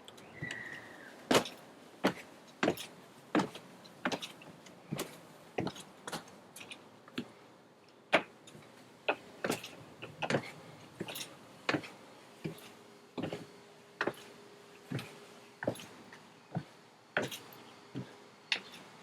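Footsteps on a hard surface, with sharp steps at walking pace about every two-thirds of a second.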